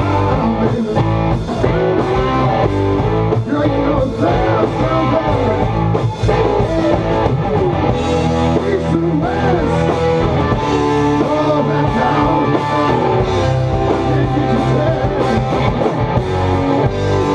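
Live blues-rock band playing: electric guitars over electric bass and a drum kit, without a break.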